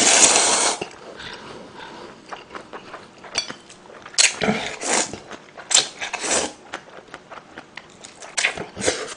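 A person slurping instant ramen noodles out of broth. There is a long, loud slurp at the start, then shorter slurps every second or two, with small mouth clicks between them.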